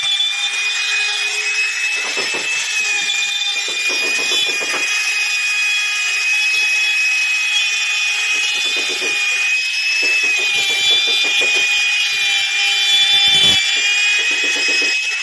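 Compact trim router running with a steady high whine, its bit cutting a recess into the wooden door frame for a lock's strike plate. The pitch sags slightly and a rough cutting noise swells each time the bit bites into the wood.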